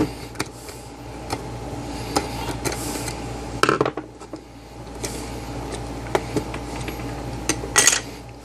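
Scattered clicks and clatter of a small screwdriver against the hard plastic case of a handheld multimeter as it is worked open, with a few louder knocks about a third of the way in and near the end.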